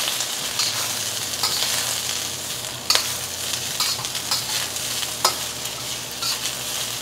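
Shredded cabbage sizzling in a hot carbon steel wok as it is stir-fried, with a metal spatula scraping and knocking against the wok now and then.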